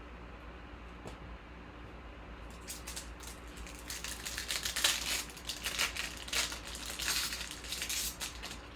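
Crinkling and rustling of a trading-card pack's foil wrapper and cards being handled, starting about two and a half seconds in and growing louder.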